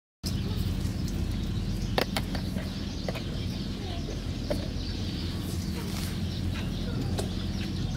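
A steady low hum with faint bird chirps and a few sharp clicks over it. The sound cuts in abruptly just after the start.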